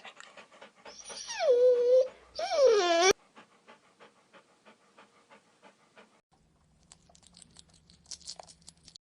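A dog panting quickly, with two loud whining calls that slide down in pitch and hold, cut off abruptly about three seconds in. Fainter quick panting follows, then a patch of clicks over a low hum.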